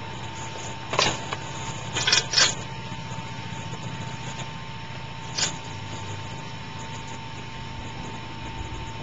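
Faint, steady drone of a de Havilland Beaver's engine as the plane flies low some way off, under a thin steady whine, with four sharp clicks, three within the first two and a half seconds and one about five and a half seconds in.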